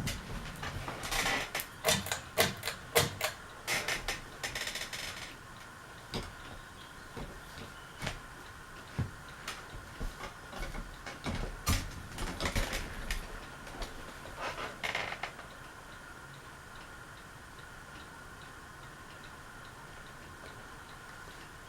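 Quorum hugger ceiling fan with a rusty motor running, with a quick run of loud clicks and knocks over the first five seconds. Scattered ticks follow until about two-thirds of the way through, then only a steady faint motor hum with a thin whine is left.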